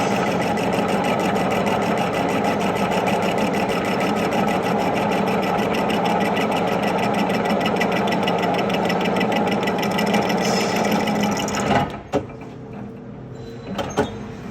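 Lathe running steadily with a hum and a fast, even ticking. It cuts off about twelve seconds in, followed by a few sharp knocks.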